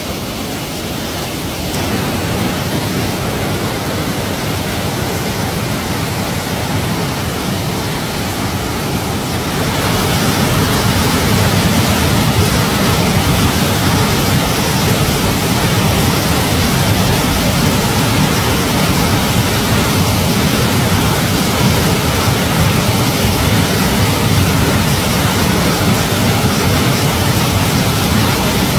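Rushing whitewater of a mountain creek and waterfall: a loud, steady roar of water with no break, growing louder about two seconds in and again about ten seconds in.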